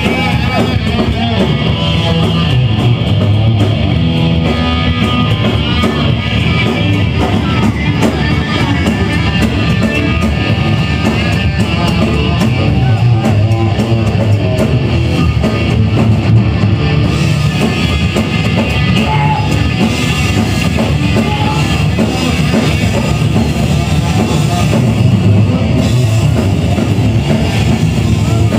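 A rock band playing live and loud, with electric guitar and a drum kit driving a steady beat.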